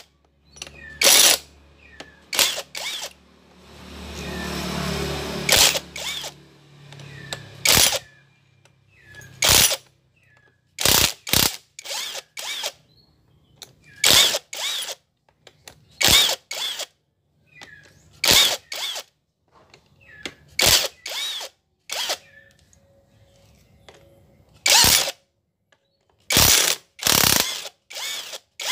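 Hand ratchet wrench clicking in short strokes, often in pairs, every second or two, as fastenings are worked during removal of the engine's magneto. A brief rising and falling rushing sound about four to six seconds in.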